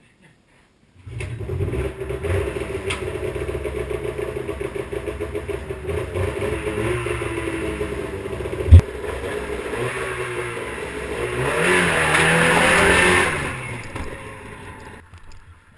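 Snowmobile engine running with a steady pulsing note, broken by one sharp thump about nine seconds in. Near the end it accelerates: the engine pitch rises and a rushing hiss swells, then it fades out.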